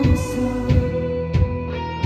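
Live rock band playing an instrumental passage: electric guitar notes held over regular drum hits, with no singing.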